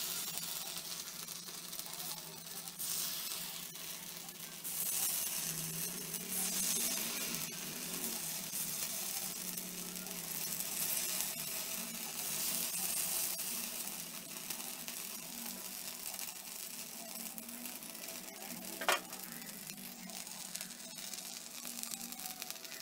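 Paniyaram batter frying in oil in the wells of a cast-iron paniyaram pan: a steady sizzle that swells and eases as a wooden stick turns the balls over. One sharp tap sounds near the end.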